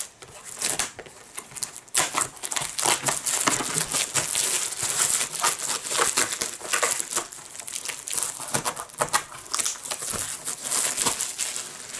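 Thin cellophane wrapper crinkling as it is handled, a dense run of irregular crackles.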